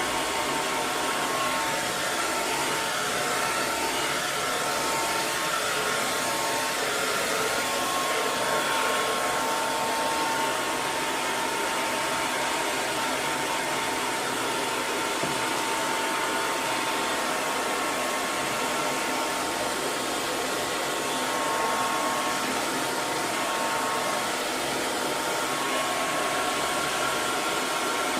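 Hair dryer running continuously: a steady rush of blown air with a faint motor whine on top, used as white noise for soothing a baby to sleep.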